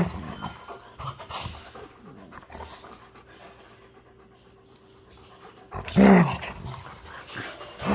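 Dogs panting hard during rough play, with one loud, low-pitched dog vocalization about six seconds in.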